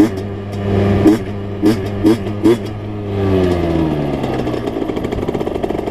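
Small 49cc enduro motorcycle engine pulling steadily, with several quick blips of revs in the first few seconds. The pitch then falls as the throttle is rolled off and the bike slows, leaving a rapid, rough pulsing at low revs.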